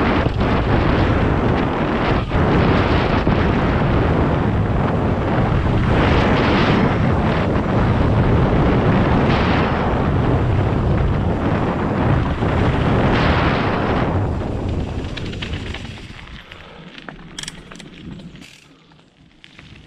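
Wind buffeting the microphone of a bike-mounted or rider-worn action camera on a fast mountain-bike descent, mixed with tyres rumbling over the dirt trail. It dies down about 15 s in as the bike slows, and a few sharp clicks come near the end.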